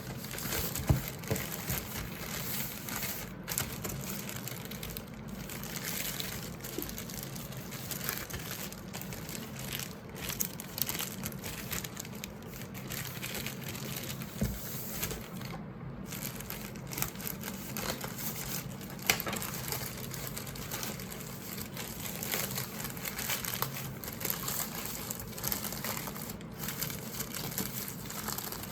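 Packaging being handled for an unboxing: crinkling and rustling with scattered small clicks and knocks.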